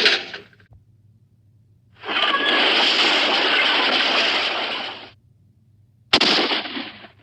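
A string of separate cartoon sound effects: a noisy crash-like sound lasting about three seconds from two seconds in, then a sudden short crash about six seconds in, with silence between.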